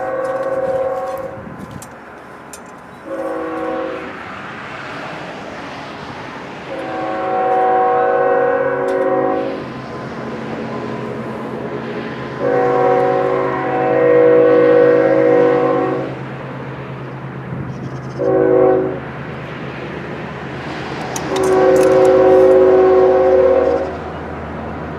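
Train horn sounding a chord in a series of blasts. The last four, from about a quarter of the way in, go long, long, short, long: the standard grade-crossing signal. A steady low hum runs underneath.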